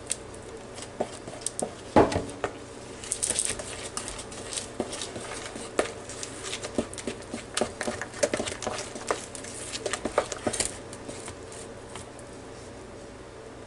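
Stirring flour into thick banana bread batter in a mixing bowl: irregular soft taps and scrapes of the utensil against the bowl, with a louder knock about two seconds in, stopping near the end.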